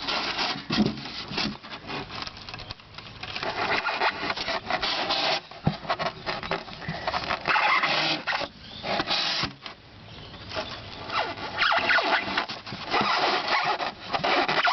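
A polystyrene box being cut through by hand: uneven runs of rasping, sawing strokes with short pauses between them.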